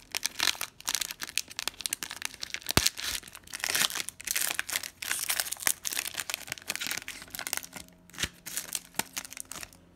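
Foil wrapper of a 2017 Panini Prestige football card pack crinkling as it is handled and torn open, with a sharp click about three seconds in, the crackling thinning out near the end.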